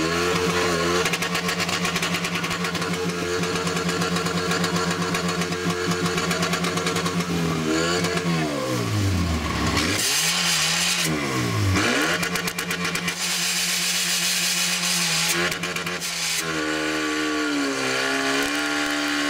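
Portable fire pump's engine running hard at steady revs. Its revs drop sharply and climb back twice, about eight and eleven seconds in, then rise to a higher steady pitch near the end as it drives water out through the hoses.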